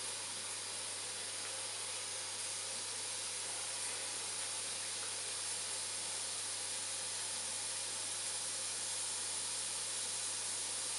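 Small gas-fired 3-inch model steam boiler hissing steadily as it comes up to pressure, with nothing sudden over it.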